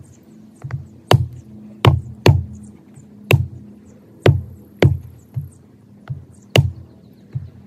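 A Skachet hatchet-head tool chopping a short round of firewood: about ten sharp wooden knocks at uneven spacing, roughly one every half second to a second, as the blade bites and the stuck round is brought down on the chopping block. Background music plays underneath.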